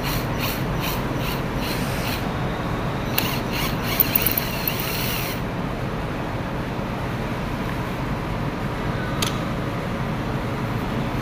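Cordless screwdriver working the screws on a circuit breaker panel, giving runs of sharp mechanical clicks and rubbing in the first couple of seconds and again from about three to five seconds in, with one more click later. A steady background noise runs underneath.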